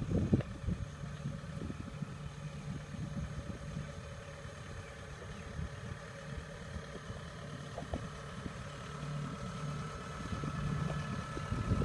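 Diesel engine of a tracked Kubota combine harvester running steadily, growing louder near the end as the machine comes closer. A few short knocks at the start.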